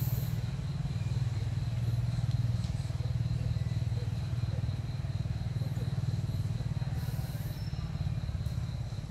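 Steady low engine rumble, like a motor vehicle running nearby, with a thin steady high-pitched whine over it and a brief rustle about seven seconds in.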